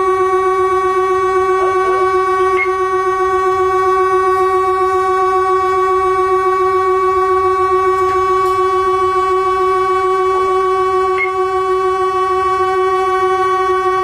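Taiwan Railway train's horn held in one long, unbroken blast at a steady pitch, sounded as a memorial to the victims of the Qingshui Tunnel accident and heard from inside the driver's cab.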